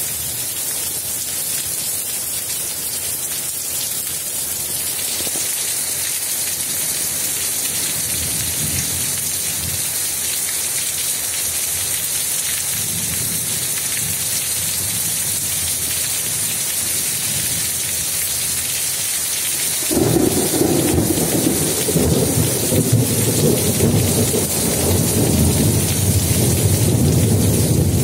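Heavy rain pouring steadily with a hiss. Faint low rumbles of thunder come and go about a third of the way in, and a louder, longer thunder rumble sets in suddenly about two-thirds of the way through.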